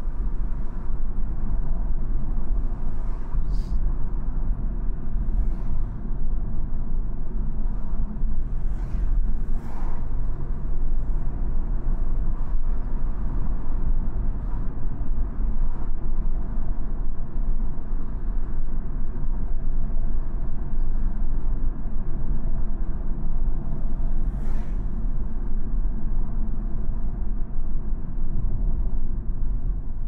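Cabin sound of a BMW 220i (G42) cruising at steady speed: its B48 2.0-litre turbocharged four-cylinder engine running at light load under a steady low rumble of tyre and road noise.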